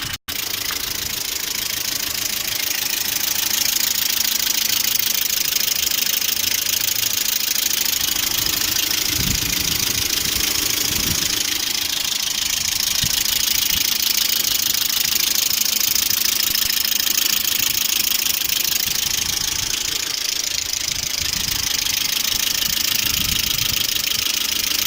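Lada Priora's 1.6-litre 16-valve VAZ-21126 inline-four idling with a steady, fast ticking clatter from the top of the engine. The owner takes the knock for the hydraulic lifters, which knock hot and cold alike and were not cured by changing oil viscosity or fitting a new oil pickup.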